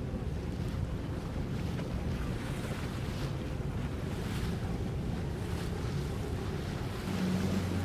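Boat motors running low with water lapping and wind on the microphone; a steadier engine hum comes in about seven seconds in.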